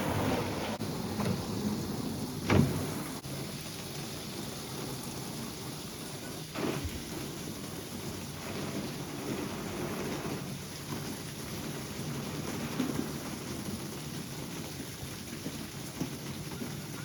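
Steady rushing noise with a sharp knock about two and a half seconds in and a weaker one a few seconds later.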